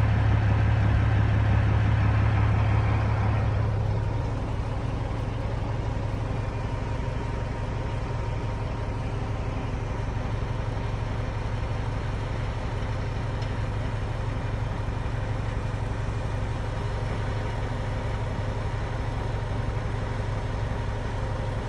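Truck engine idling steadily, heard from inside the cab, a little quieter from about three and a half seconds in.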